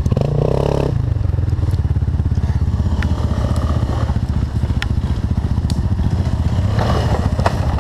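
Quad bike engine idling steadily close to the microphone, with the engine note briefly lifting about half a second in.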